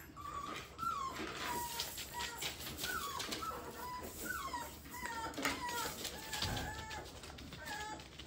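Bullmastiff puppies whining and yipping as they play: many short, high calls, several sliding down in pitch, mixed with scattered clicks and scuffles.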